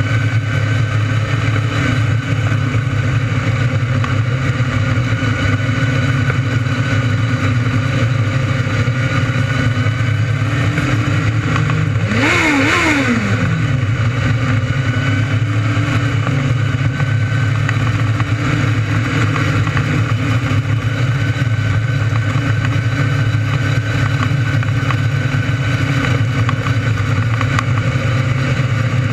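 600cc micro sprint race car engines running hard and steady under racing, with one brief rise and fall in pitch about twelve seconds in.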